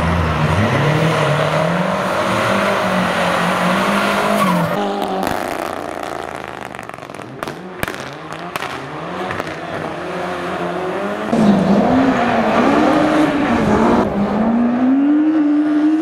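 Rally cars' engines revving hard and lifting off through corners, the pitch rising and falling. It goes quieter after about five seconds and loud again for the last few seconds.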